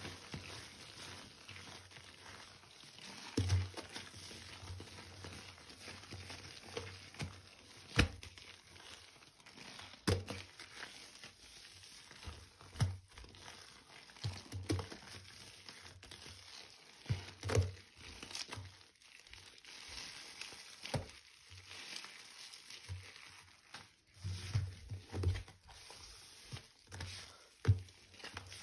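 Gloved hands kneading and squeezing a damp paste of recycled powder and water in a bowl: soft crumbly crunching and squishing, with irregular dull thumps and sharp clicks as the hands press the mass against the bowl.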